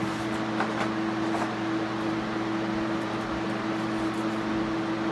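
A steady mechanical hum holding a constant low tone, with a few faint light clicks and rustles.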